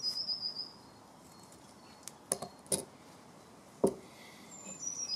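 Brown paper tape cut from the roll with scissors: a few sharp snips and clicks, then one loud sharp knock just before four seconds. A small bird's high, thin call falls in pitch near the start and again near the end.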